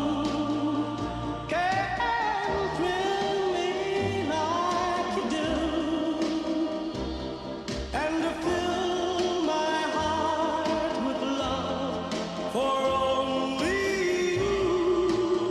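Music soundtrack with a singing voice: long held notes with vibrato over low sustained tones, new phrases beginning a couple of seconds in, about halfway, and near the end.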